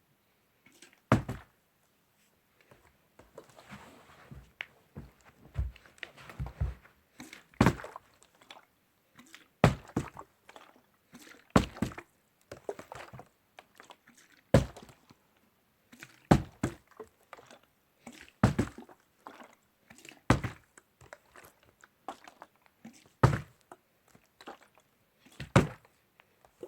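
A series of sharp knocks or thumps, roughly one every two seconds and sometimes two close together, with faint scuffing and rustling between them.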